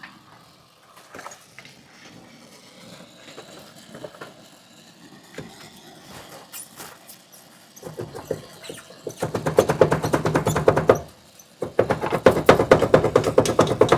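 Pneumatic wrench rattling rapidly as it undoes a bolt, in two bursts: the first starting about eight seconds in and stopping near eleven, the second starting again moments later. Before it, only scattered small clicks of tools being handled.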